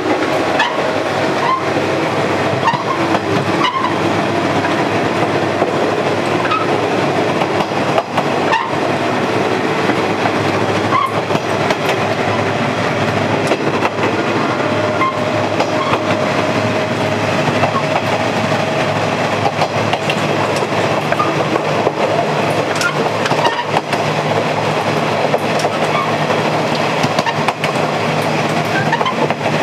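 Japanese KiHa diesel railcar running, heard from inside at the bellows gangway between two cars: a loud, steady running noise with a low engine hum, broken by scattered sharp clicks of the wheels over rail joints.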